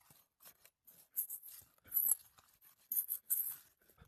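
Short, intermittent scraping and clicking of a hand tool working under brittle 3-tab asphalt shingles to find and pull the nails, in a few separate strokes.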